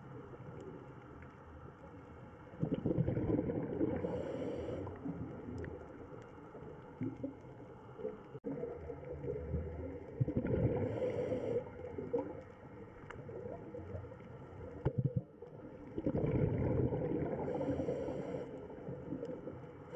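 Underwater recording of a scuba diver breathing through a regulator: three surges of gurgling exhaled bubbles about seven seconds apart, each with a short hiss, over a steady low wash of water.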